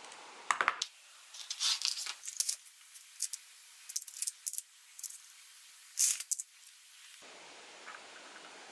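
Small metal screws, bolts and nuts clinking and rattling in clear plastic parts trays as fingers pick through them: a run of irregular sharp clicks, loudest about two seconds in and again about six seconds in.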